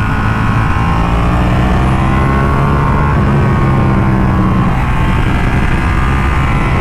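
Ducati Panigale 1299S's L-twin engine running at speed through the bends, its pitch climbing over the first few seconds and easing back a little after about four and a half seconds. Heavy wind rush lies over it.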